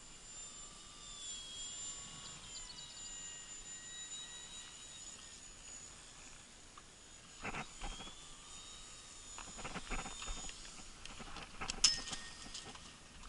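Faint high whine of an RC model plane's electric motor: a few steady tones that drift slightly in pitch and fade out about ten seconds in. Several short knocks and rustles come in the second half.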